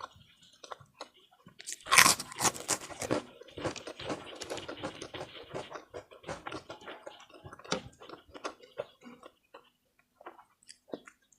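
Close-miked eating sounds: chewing a mouthful of ketupat and opor ayam, with wet mouth smacks and a few crunches. A loud burst comes about two seconds in, steady chewing follows, and it thins to scattered smacks in the second half.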